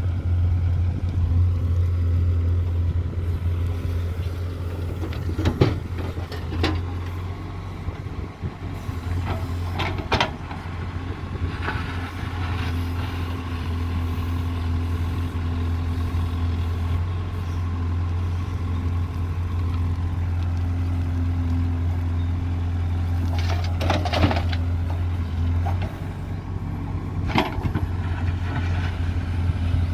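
JCB 3DX backhoe loader's diesel engine running steadily under load as the backhoe digs, with a few sharp clanks from the bucket and arm scattered through it.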